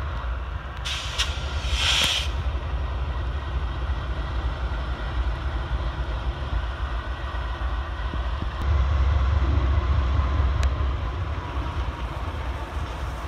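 Freight train's diesel locomotives rolling slowly past with a steady low engine rumble and wheels on the rails. A short burst of hiss comes about a second in, and the rumble grows louder about two-thirds of the way through as more units pass.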